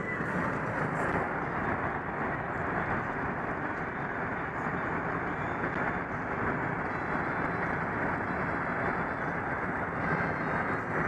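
Steady road and engine noise inside a car cruising on a freeway.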